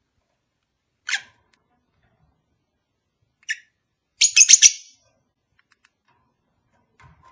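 Lovebird calling: two single shrill chirps a couple of seconds apart, then a quick loud burst of several chirps about four seconds in.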